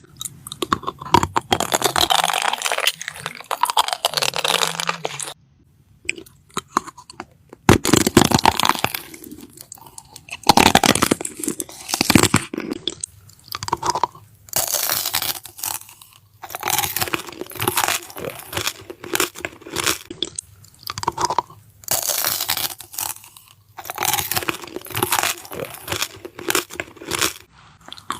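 Close-miked eating: a person biting and chewing crunchy food in repeated bursts, with short pauses between mouthfuls.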